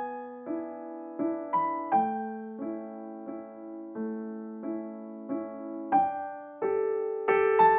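Soft background piano music: slow, gentle notes and chords, each struck note fading away.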